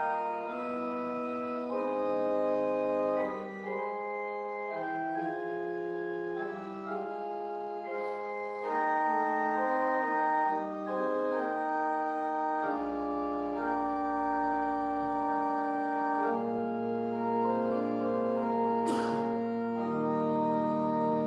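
Church organ playing a slow piece in sustained chords that change every second or so, with a deep bass note held for a few seconds midway. There is one brief click near the end.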